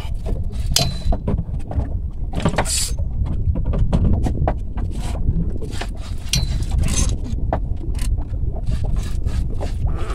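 Wind rumbling on the microphone aboard a small fishing boat at sea, with irregular short slaps and splashes of water against the hull.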